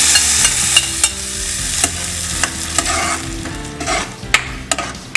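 Tempering sizzling in hot oil and ghee: mustard seeds, cumin, urad dal and chopped ginger spattering in a pan while being stirred, with sharp clicks and pops throughout. The sizzle is loudest at first and dies down toward the end; the spattering signals that the tempering is ready for the dal.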